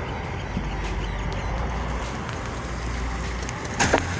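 Tractor diesel engine running steadily with a low drone. Near the end a brief loud rush of noise cuts across it.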